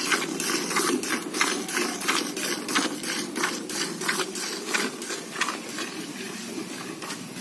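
Hand-milking a Murrah buffalo: jets of milk squirting into a plastic bucket of milk in a quick rhythmic series of hissing strokes, about three a second, alternating between the hands. The strokes grow weaker near the end.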